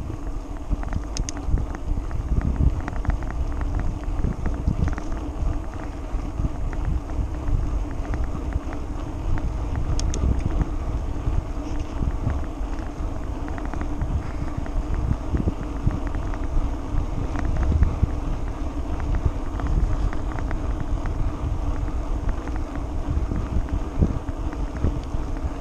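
Wind rushing over the microphone while cycling, with a steady low rumble of bicycle tyres rolling on a tarmac path and a few faint clicks.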